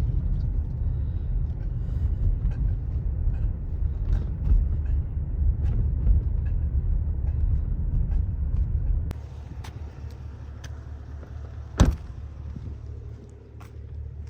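Motor vehicle running with a steady low rumble that drops away sharply about nine seconds in, leaving a quieter hum; a single sharp thump follows near the end.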